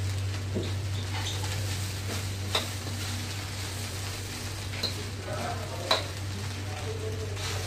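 Fried rice sizzling in a wok as it is stirred, with a few sharp scrapes or taps of the spatula against the pan and a steady low hum underneath.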